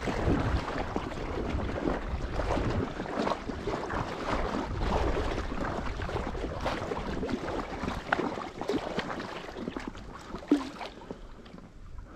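Small waves lapping and splashing against an inflatable float tube in irregular little slaps, with gusts of wind rumbling on the microphone. One sharp click sounds near the end.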